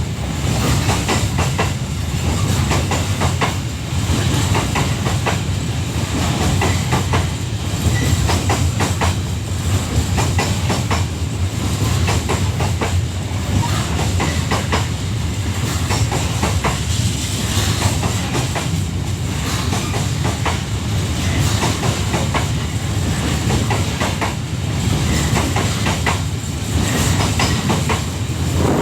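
Wagons of a long Babaranjang coal train rolling past: a steady, loud rumble of wheels on rail with continuous clicking and clattering over the rail joints.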